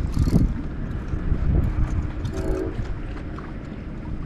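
A train horn sounding a short blast about two seconds in, over a steady low rumble.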